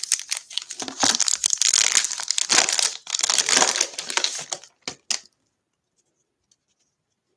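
Shiny foil wrapper of a 2020 Bowman trading-card pack crinkling as it is opened by hand, stopping about five seconds in.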